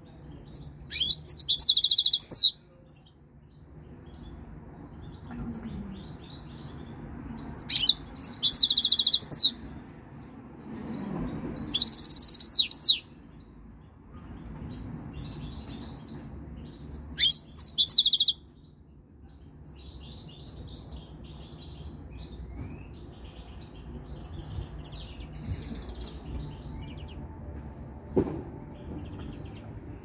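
European goldfinch singing in bursts of quick, high twittering phrases: four loud bursts in the first two-thirds, then softer, more scattered twittering. The bird is a three-year-old coming into breeding condition.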